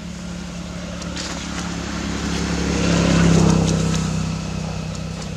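A motor vehicle's engine passing by: a steady low hum that grows louder to a peak about three seconds in, then fades again.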